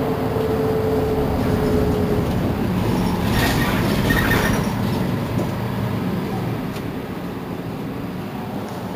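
Mercedes-Benz Citaro C2 city bus on the move, heard from on board: engine and drivetrain running under road noise. A brief hiss comes a little past three seconds in, and the sound eases off through the second half.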